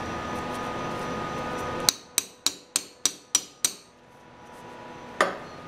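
Hammer striking steel: seven quick ringing blows, about three a second, then a single blow about a second and a half later. A steady hiss stops just before the first blow.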